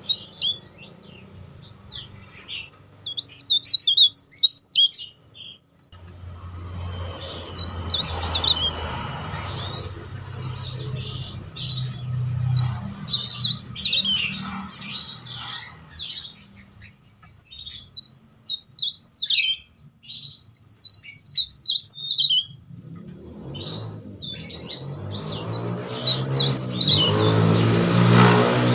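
Cikrak daun (mountain leaf warbler) singing in repeated bursts of rapid, shrill, loud twittering, each phrase a second or two long with short pauses between. A low engine-like rumble swells twice underneath.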